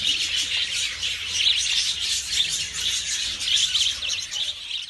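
Many budgerigars chirping and chattering together in a continuous, overlapping chorus of high chirps.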